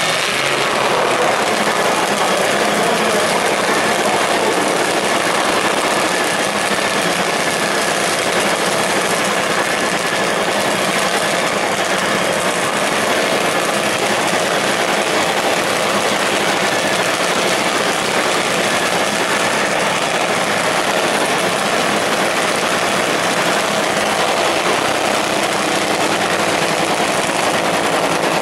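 Top Fuel dragster's supercharged, nitromethane-burning V8 idling, a loud, steady engine noise.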